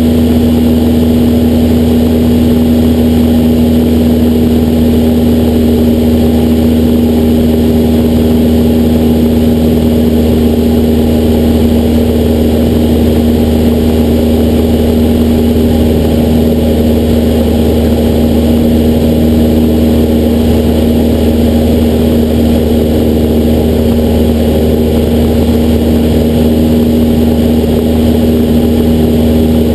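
Cessna 172SP's four-cylinder Lycoming IO-360 engine and propeller running at a steady cruise setting in flight: a loud, even drone with a strong low hum, its pitch not changing.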